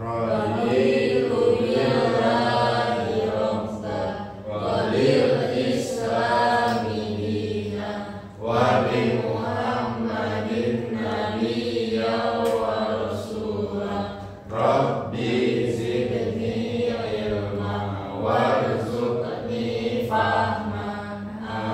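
A class of students reciting a prayer together in unison, chanted in phrases of a few seconds with short pauses for breath between them.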